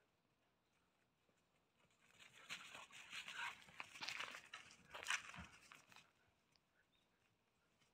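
Two puppies play-fighting: scuffling and snarling from about two to six seconds in, loudest near the end of that stretch.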